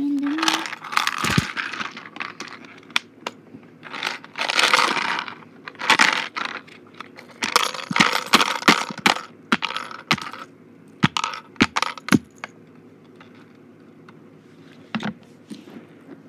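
Handling noise: bursts of rustling and scraping with sharp clicks and knocks, busiest in the first ten seconds, the last clicks coming about eleven to twelve seconds in and once more near fifteen seconds.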